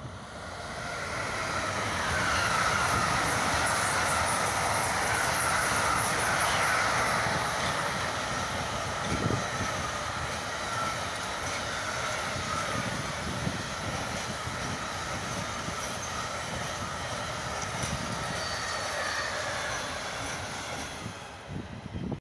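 An electric freight locomotive and a long intermodal train of trailer-carrying wagons passing at speed: a steady rush of wheels on rail with clattering wagons, loudest in the first few seconds as the locomotive goes by. A high wavering squeal rides over the wheel noise for the first half.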